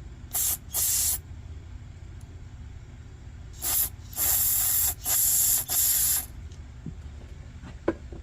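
Six short blasts of pressurized spray hissing from a nozzle: two quick ones, a pause, then four more in close succession. A small sharp click comes near the end.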